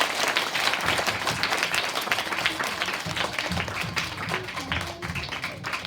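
Audience applauding, with dense clapping over music that keeps playing underneath.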